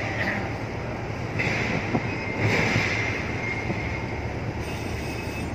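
Steady low rumble of a container ship passing close by, with a high whine that comes and goes.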